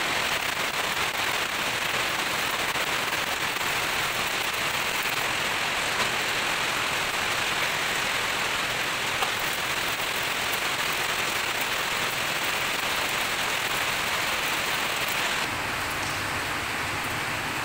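Stick-welding (SMAW) arc crackling and sizzling steadily as the electrode burns along a weld on a steel vessel.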